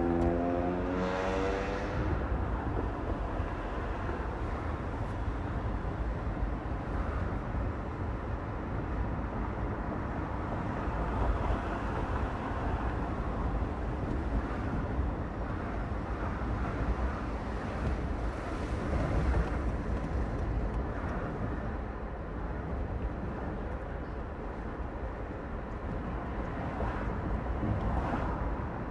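Steady road and engine noise of a car driving through city streets. In the first two seconds a vehicle's engine note climbs in pitch as it accelerates, and the traffic noise swells a few times as other vehicles pass.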